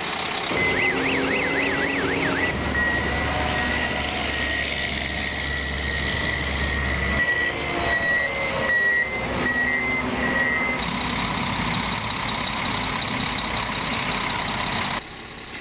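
PistenBully 600 snow groomers running, with a steady engine hum and electronic warning signals over it: a short warbling tone near the start, then a run of repeated beeps, then a steady high tone that cuts off suddenly near the end.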